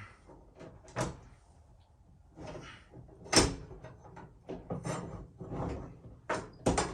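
Clamps and wood being handled and set in place: a run of sharp knocks and clicks, the loudest about three and a half seconds in and several in quick succession near the end.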